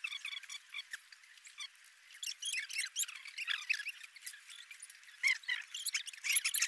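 Eating sounds from people eating rice with their fingers: a scatter of short, thin, wet clicks and squeaks of mouths and fingers, quieter for a moment about a second in and busier in the second half.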